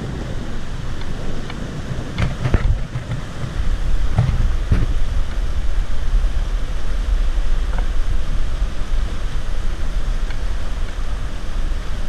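Shallow mountain stream rushing over rocks, with wind buffeting the microphone as a heavy low rumble from about three and a half seconds in. A few short splashes from wading in the water come between about two and five seconds in.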